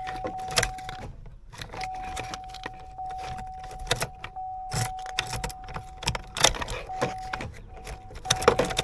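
Keys jangling and clicking as a key is worked in a 2008 Chevy Suburban's ignition switch, while a steady electronic warning tone from the truck sounds with a few short breaks. The Suburban is in theft mode and locked out, so it will not start.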